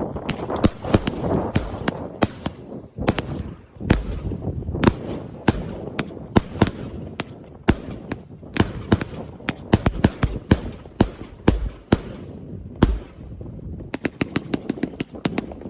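Funke Electric Funeral 100-shot, 30 mm firework cake firing: a continuing run of sharp bursting cracks and bangs with rumbling between them, thickening into a quick string of cracks near the end.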